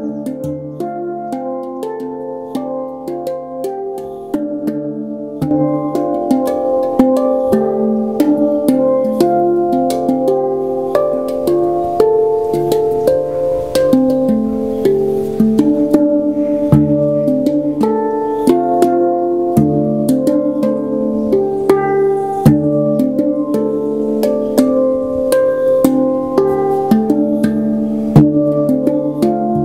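Steel handpan (Pantam drum) played with the hands: struck notes ring out one after another in a flowing melody, with quick repeated taps. The playing grows louder about five seconds in.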